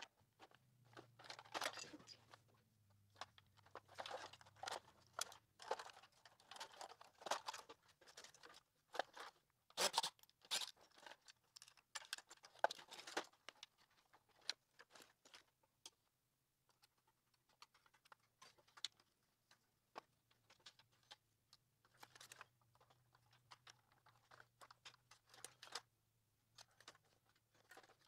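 Hard plastic parts of an iRobot Roomba 670 being handled and prised apart by hand: scattered clicks, snaps and short scrapes, the sharpest about ten and twelve seconds in, over a faint low hum.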